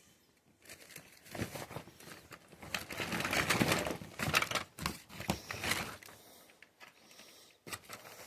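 A clear plastic bag rustling and crinkling as hands rummage through it, with light clicks and knocks of plastic action figures, loudest around three to four seconds in and dying down after about six seconds.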